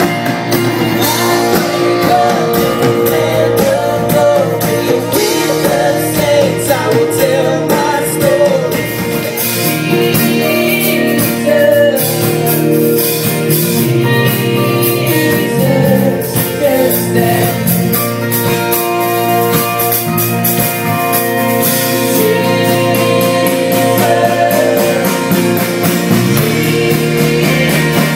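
Live rock band playing loudly, with singing over electric guitar and a drum kit.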